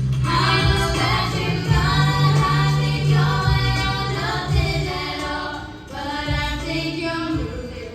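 Pop music with female voices singing over a steady low bass line.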